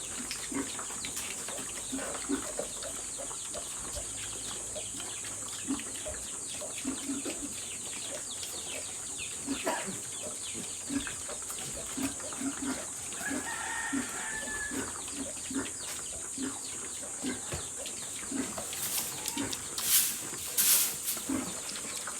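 Piglets grunting with short low grunts as they feed, and a rooster crowing once about halfway through, over a steady high-pitched hiss. A few louder sharp knocks and rustles come near the end.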